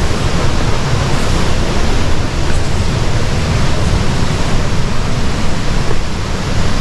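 Waterfall's falling water rushing steadily and loudly, a constant, even wash of noise.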